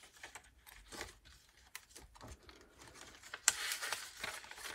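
Paper and card pages of a handmade junk journal being handled and turned: scattered light clicks and taps, with a louder rustle of a page turning about three and a half seconds in.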